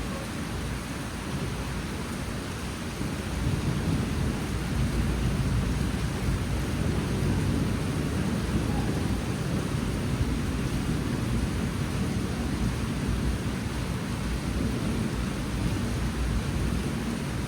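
Monsoon rain pouring steadily, with a deep low rumble underneath; it grows louder about three and a half seconds in and stays that way.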